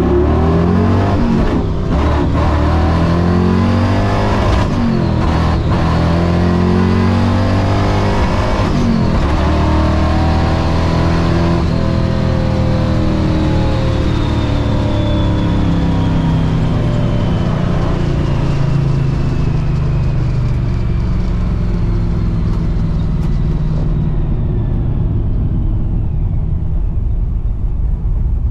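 Supercharged small-block V8 of a 1960 Corvette, heard from inside the cabin, launching hard and revving up through the gears of its manual gearbox, with a short drop in pitch at each shift and a high supercharger whine climbing with the revs. After about twelve seconds the engine comes off the throttle and the pitch and the whine fall slowly as the car slows after the pass.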